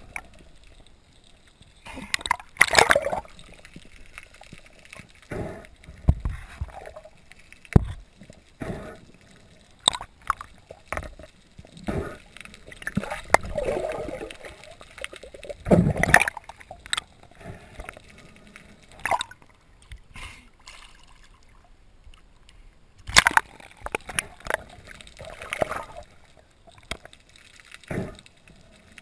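Water sloshing and gurgling heard underwater in irregular bursts every few seconds, with a few short, sharp knocks in between, as a freediver handles a speared trevally on the spear shaft.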